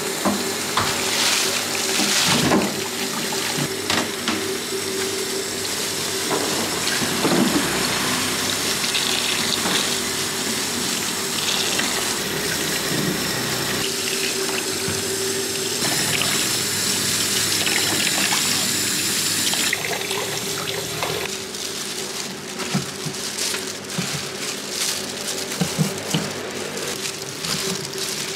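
Tap water running into a stainless steel sink while apples are rubbed and rinsed under the stream, over a steady low hum. Near the end, a few short knocks as apples are set down into a plastic bin.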